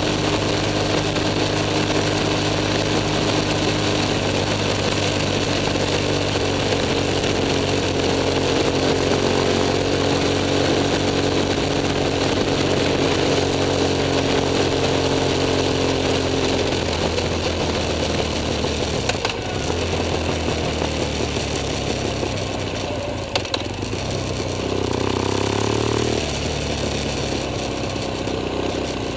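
BMW F 800 S's parallel-twin engine running at steady revs on the move. About seventeen seconds in, the throttle closes and the engine note drops as the bike slows, with a few sharp clicks.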